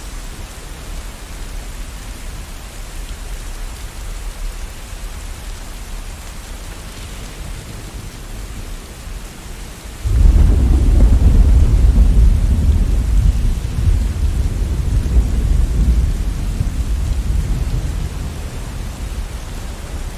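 Steady rain falling, then about halfway through a sudden loud roll of thunder breaks in, a deep rumble that goes on for several seconds before easing off under the rain.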